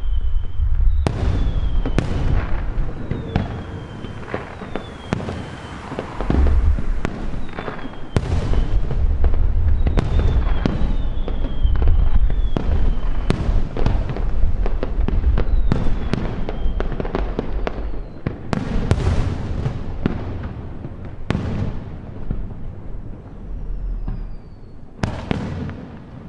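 Aerial fireworks shells bursting in quick succession, about two bangs every few seconds, with a low rumble of echoes between them and short falling whistles from the shells.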